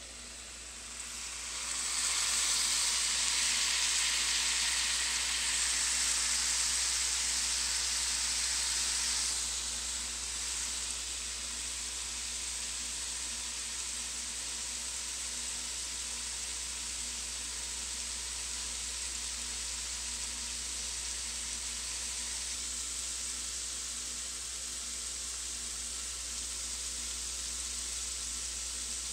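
Sliced bell peppers and onion sizzling in a cast-iron skillet. The sizzle swells about two seconds in, stays loudest until about ten seconds in, then settles to a steady, quieter sizzle.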